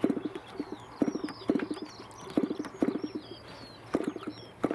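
Irvine 20 model diesel engine with a 10x6 propeller being flicked over by hand: a string of short bursts of rapid pops as it turns over and tries to fire, about every half second to a second, without catching and running. Birds chirp faintly in the background.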